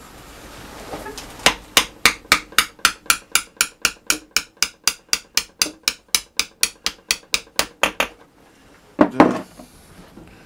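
Rapid, even hammer taps on metal, about four a second for some six seconds, then a single louder knock. The taps are driving a rusty valve out of a small marine diesel's cylinder head.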